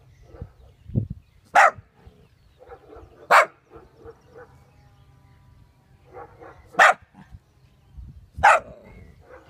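A corgi puppy barking: four short, sharp barks, two in the first half and two in the second.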